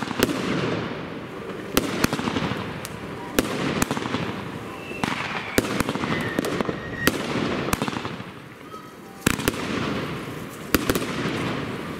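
Evolution Fireworks 'Fairytail' consumer firework assortment firing shot after shot. It makes sharp bangs every second or so, some in quick pairs, and each is followed by a fading hiss as the burst falls away.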